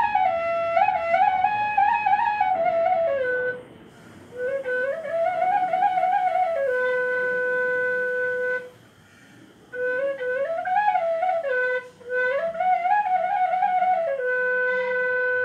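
Nepali murali, a bamboo flute, playing a cattle herders' folk tune, the one played when taking cattle to graze in the forest pastures of Raskot. It goes in short phrases that climb and fall back, twice settling on a long held low note, with brief pauses for breath between phrases.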